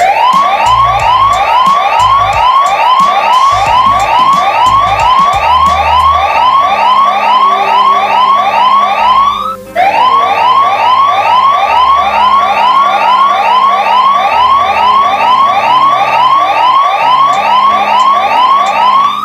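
Emergency alert alarm tone: a loud, rapidly repeating rising whoop, about two sweeps a second. It breaks off for a moment about halfway through, then resumes until it cuts off suddenly near the end.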